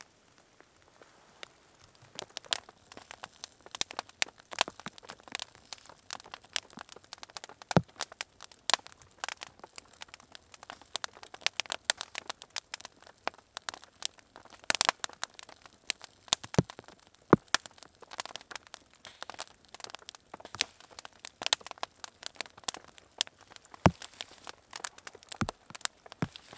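Wood campfire crackling, with irregular sharp pops and snaps that start about two seconds in.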